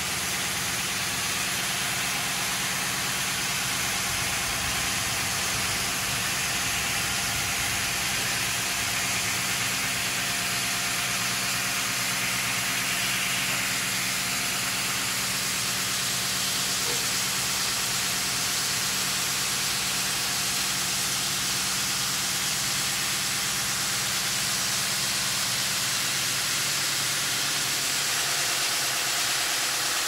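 Stone bridge saw's water-cooled diamond blade cutting a block of Takine granite, running steadily: a motor hum under the hiss of the blade grinding through the stone.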